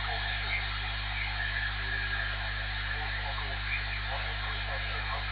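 AnyTone AT-5555N CB radio's speaker hissing with band noise on 27 MHz upper sideband, a weak distant voice half-buried in the static, over a steady mains hum. The long-distance signal sits at the edge of the noise and is only partly readable.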